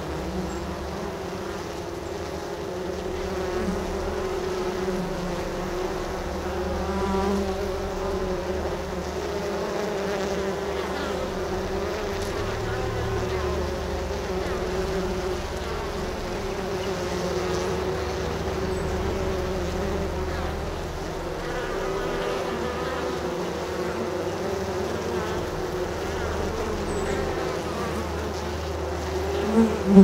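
Steady buzzing of many honey bees at their hive entrance, the hum wavering slightly as they move about, with a brief louder buzz near the end.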